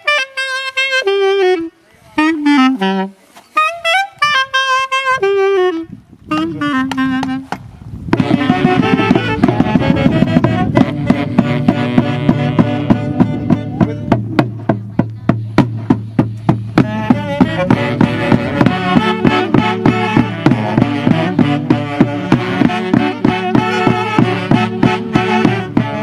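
A solo saxophone plays a free, unaccompanied melodic phrase for about 8 seconds. Then the full folk band of saxophones and a drum comes in with a steady beat, playing a traditional Santiago tune from Huancavelica.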